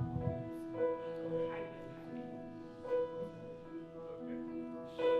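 Soft keyboard music of a worship song: sustained chords, with new notes coming in every second or so.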